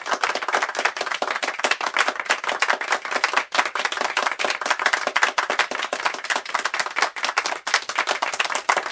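A group of people clapping: a dense run of quick, uneven claps.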